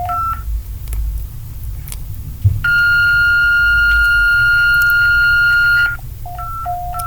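Electronic emergency alert alarm played back: short beeps alternating between a low and a high pitch, then one steady high tone lasting about three seconds, then the alternating low-high beeps start again. A low hum runs underneath.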